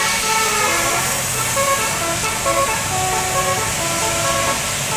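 Bus Basuri telolet horn, driven by a DAV module, playing a quick tune of short stepped notes.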